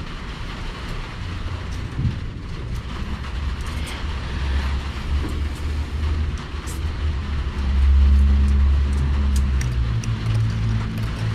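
A low engine rumble that swells about four seconds in and is loudest around eight seconds, with a steady hum joining near the end. Over it come faint small ticks of steel leader wire being twisted by hand.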